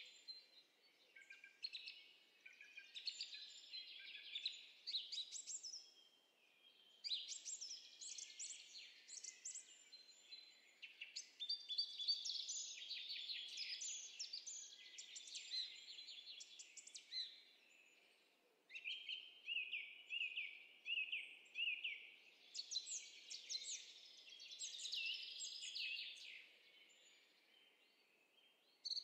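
Songbirds chirping and singing, several overlapping songs of quick high notes and trills in a nature-ambience sound effect. About two-thirds of the way through, one bird repeats a single note evenly, about twice a second.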